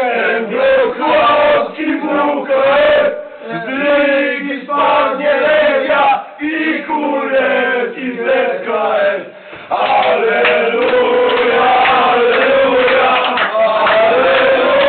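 A group of male volleyball fans singing and chanting together in loose, ragged phrases. About two-thirds of the way in, the singing jumps louder and runs on without breaks as more voices join in.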